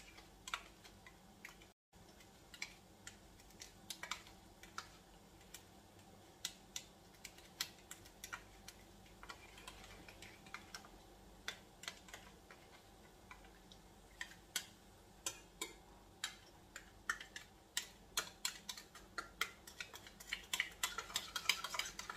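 Metal spoon clinking and scraping against a small cup while crushing and stirring a stock cube to dissolve it: irregular light clicks that come faster and louder near the end.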